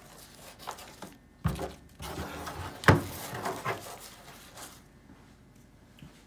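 Torn corrugated cardboard being pulled off a cast mold block and crumpled by hand, with rustling and a few knocks on the workbench, the sharpest about three seconds in.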